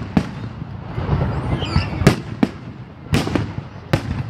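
Aerial fireworks shells bursting overhead: about half a dozen sharp bangs at irregular intervals, some coming in quick pairs.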